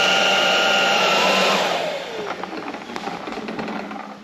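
Inse S610 cordless stick vacuum's motor running with a steady high whine, then switched off about a second and a half in, its pitch falling as it spins down.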